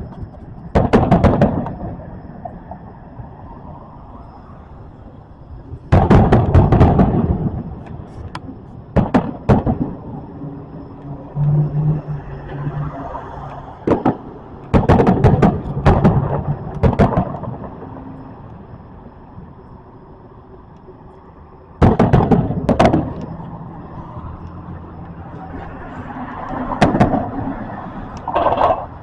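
Fireworks going off: clusters of sharp bangs and crackles with rumbling echoes, coming in bursts every few seconds.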